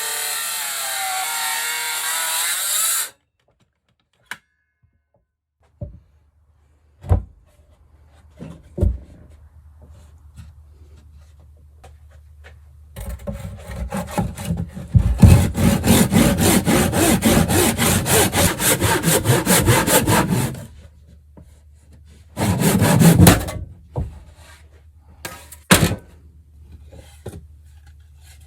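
A saw cutting through wood in rapid, even strokes for about seven seconds, loudest midway, with a shorter burst of sawing later. A few separate knocks of wood sound before and after. It opens with a few seconds of steady noise that cuts off suddenly.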